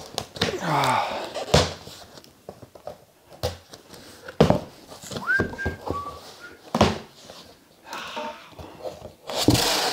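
Cardboard box being opened by hand: flaps pulled up and knocking against the box, with several separate thunks and rustling, scraping cardboard in between, and a louder burst of rustling as the flaps open near the end.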